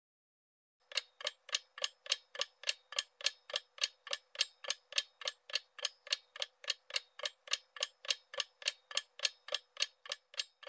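Clock-ticking sound effect for a quiz countdown timer: even, sharp ticks about three and a half a second, starting about a second in and cutting off suddenly.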